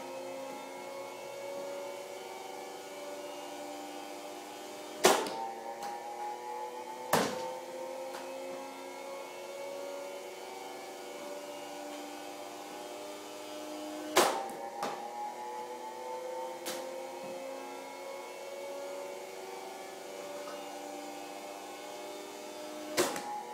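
Steady electric motor hum whose pitch creeps slowly upward and drops back three times. Over it come four sharp knocks of baseballs during ground-ball practice, plus a few fainter ones.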